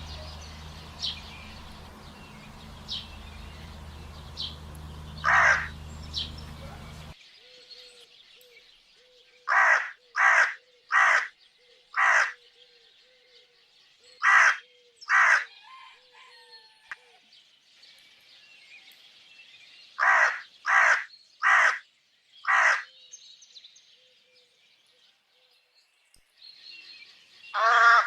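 Crows cawing in harsh calls: one caw over a noisy background with small birds chirping, then, after a change of recording, caws in runs of four, two and four, and a last caw near the end.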